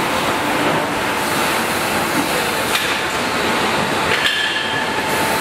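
Steady din of a busy exhibition hall full of running machinery, with a faint constant whine under it, a sharp click a little before three seconds in and a brief metallic clink about four seconds in.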